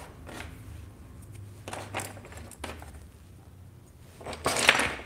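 Small knocks and rustles of tools being handled, scattered over a steady low hum, with a louder rustle near the end.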